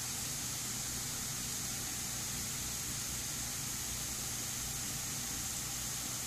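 Automated high-pressure misting nozzles spraying fine mist, a steady hiss with a low steady hum beneath it.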